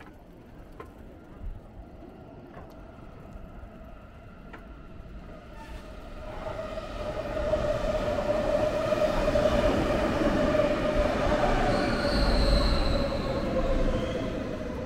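A train passing on the tracks: its sound swells over a few seconds, holds with a steady whine from the wheels and motors, and fades near the end.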